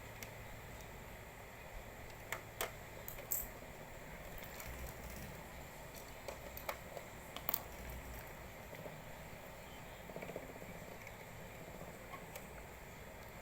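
A few faint, scattered clicks and taps over quiet room noise, as from handling a small object.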